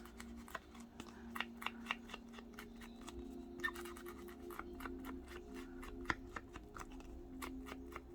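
Short scratchy taps and rubs of paper being worked by hand at a craft table, several a second and uneven, over a steady low hum.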